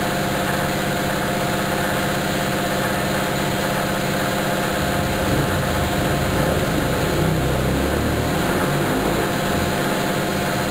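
Laser cutter running while cutting 3 mm MDF: a steady machine hum with fan-like hiss, and lower shifting tones from about halfway through as the cutting head moves.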